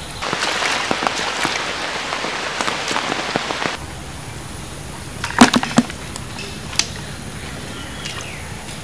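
A hand groping through muddy water in a small flooded hole: steady sloshing and splashing for the first few seconds, then quieter, with a few sharp wet splashes about five and a half and seven seconds in.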